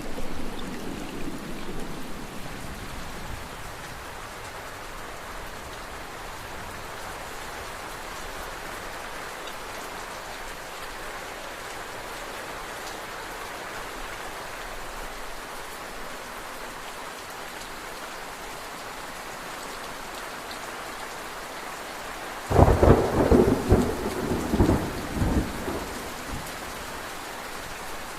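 Steady rain falling during a thunderstorm. A fading roll of thunder dies away in the first few seconds, and a loud thunderclap breaks near the end, rolling on in several surges for about three seconds.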